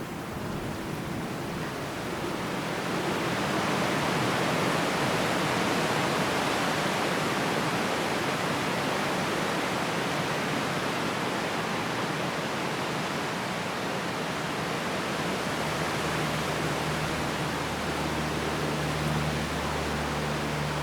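Wind blowing through trees, a steady rush of leaves that swells a few seconds in. Near the end a low steady hum joins it.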